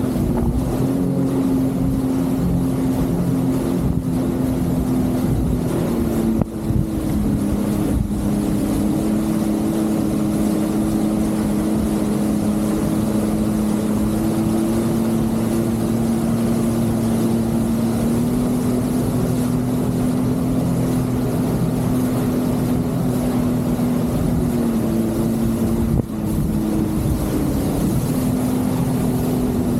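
Jet ski engine running steadily at cruising speed, its pitch dropping slightly about six seconds in, rising again a little past the middle, and shifting once more near the end.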